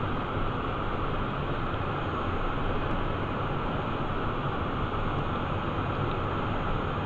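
Steady cockpit noise of a Cessna Citation 501 business jet in its initial climb: an even rush of airflow and the hum of its twin turbofan engines at climb power.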